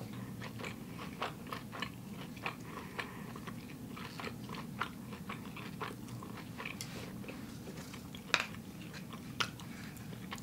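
A person chewing sushi, with many small irregular clicks of chewing and two sharper clicks about eight and nine seconds in.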